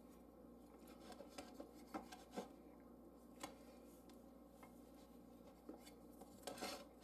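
Faint scrapes and light ticks of a kitchen knife cutting through a flour-tortilla quesadilla and touching the metal plate beneath, a few short strokes spread apart with a small cluster near the end.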